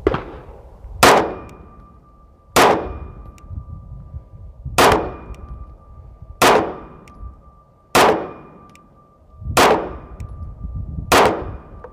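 Seven 9mm pistol shots from a custom carry pistol, fired one every one and a half to two seconds: 115-grain loads with small rifle primers going through a chronograph. Each report is a sharp crack with a short ringing tail.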